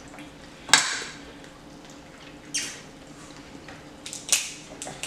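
Eating sounds at a table: three short sharp clicks and smacks, spaced a second or two apart, over a faint steady room hum.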